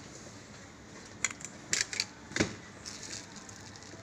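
Handling noise while unpacking a lens from plastic packaging: a few sharp crackles and clicks, then a dull thump about two and a half seconds in.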